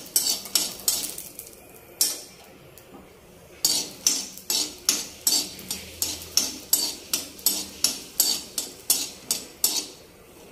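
Metal spoon scraping and clinking against a metal kadhai as peanuts are stirred while they roast in a little oil. The strokes come about three a second, with a short pause about a second in.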